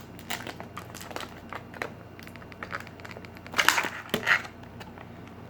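Hard plastic toy packaging being handled and pried at: scattered clicks and crackles, with a louder burst of crunching plastic about three and a half seconds in and another shortly after.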